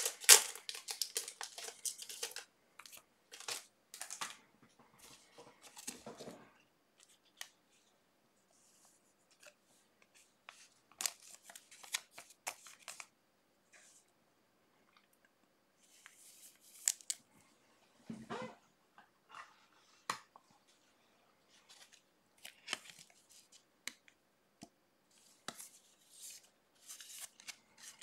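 Trading card packs being opened and the cards handled: scattered short rustles of wrappers and soft clicks of cards, with quiet gaps between.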